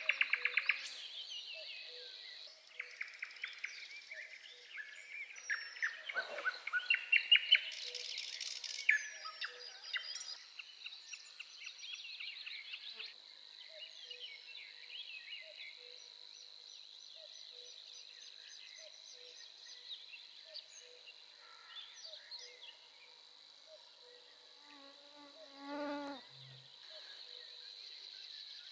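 Wild swamp ambience: several songbirds singing rapid trills and repeated notes, loudest in the first half, over a steady high-pitched insect hum. A faint low note repeats about once a second, and a single louder call stands out near the end.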